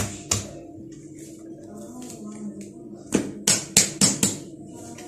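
Hands slapping and patting soft bread dough against a marble countertop: two slaps at the start, then a quick run of about five sharp slaps a little past three seconds in. A low steady hum runs underneath.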